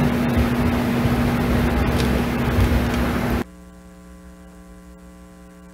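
A loud hiss with a steady low tone cuts off abruptly about three and a half seconds in. It gives way to a faint, steady electrical mains hum on a microphone feed.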